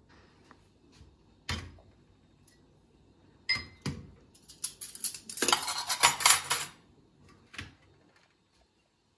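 Dishes and cutlery being handled: a few separate knocks and clinks, one with a short metallic ring, and a run of rapid clattering lasting about two seconds in the middle.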